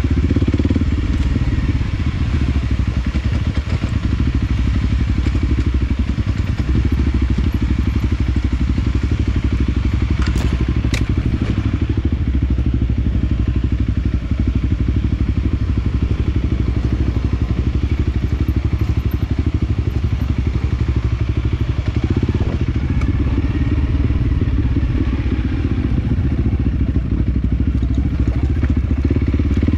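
Small motorcycle engine running steadily while riding a rough dirt trail, with occasional thuds and rattles from the bike over the ground.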